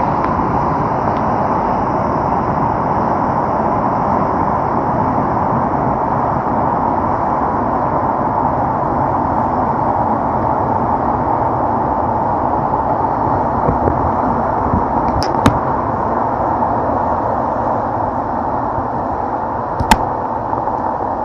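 Floodwater rushing in a steady, loud torrent, with a couple of sharp knocks about three-quarters of the way in and another near the end.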